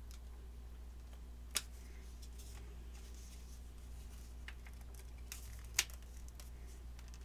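A few light plastic clicks and taps as a spray booth's LED light bar is handled and fitted, the two sharpest about a second and a half in and near six seconds, over a low steady hum.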